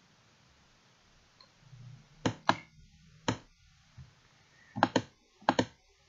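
Computer mouse button clicking: about seven sharp clicks in the second half, several in quick pairs, as points of a line are placed in a drawing program.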